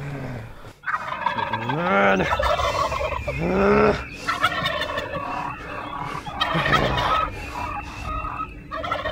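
Turkey gobbling, rapid gobbles one after another, with two rising-and-falling cries in the first few seconds.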